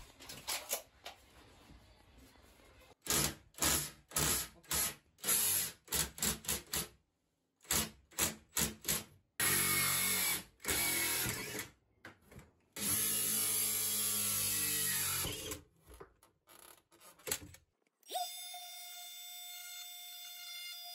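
Cordless drill worked in many short trigger bursts, with two longer steady runs of a few seconds each, drilling into the vanity cabinet panel. Background music takes over near the end.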